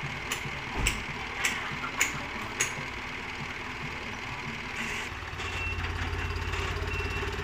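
Dump truck engine running, growing louder about five seconds in as its reversing alarm starts beeping repeatedly. A few sharp knocks come in the first few seconds.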